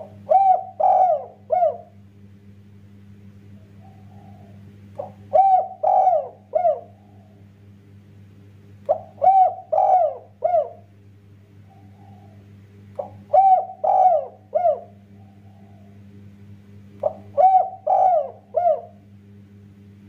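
Spotted dove (tekukur) cooing: five phrases about four seconds apart, each a short note followed by three loud coos, with a soft low murmur between phrases. A steady low hum runs underneath.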